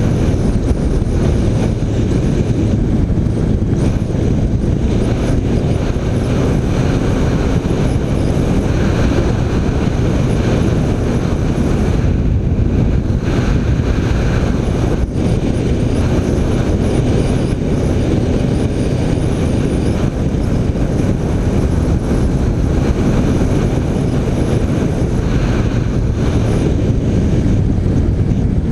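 Onboard sound of a BMW K1300R motorcycle riding at a steady pace: the inline-four engine running under heavy wind rush on the microphone, at an even level throughout.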